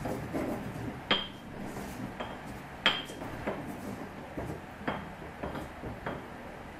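Pestle pounding and grinding in a mortar, crushing toasted spices with garlic and ginger: about seven irregular knocks, the loudest with a short ringing clink, with scraping between them.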